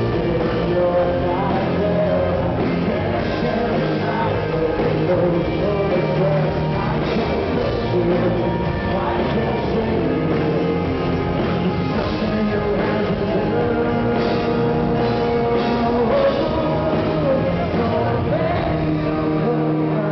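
Rock band playing live, with a male lead singer singing over guitar and the full band, heard from the audience.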